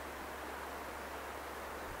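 Boeing 777-200 twin-jet airliner on final approach, its engines heard from a distance as a steady rushing noise.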